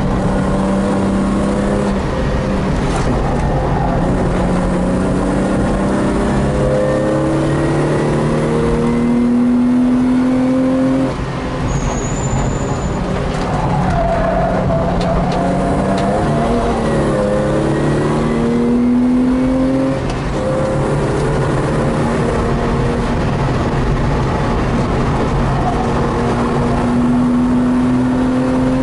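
BMW M50B25 2.5-litre straight-six, heard from inside the E28's cabin, pulling hard under acceleration with its pitch rising through the revs. It drops off briefly twice, about eleven and twenty seconds in, then pulls again.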